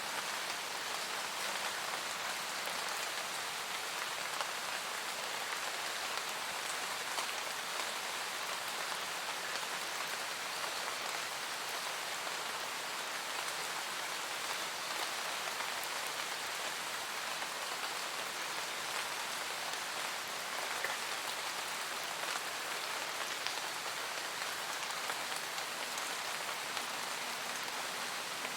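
Steady rain falling in a forest, a dense even hiss of drops with occasional individual drop ticks standing out.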